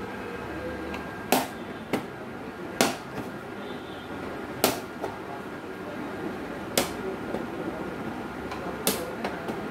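Sharp, irregular clicks and taps, about seven in all, of a screwdriver working at the plastic back cover of an LED TV, over a steady low hum.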